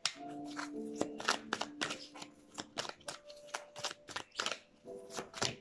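A deck of large divination cards being shuffled overhand between the hands: a quick, uneven run of soft card flicks and slaps.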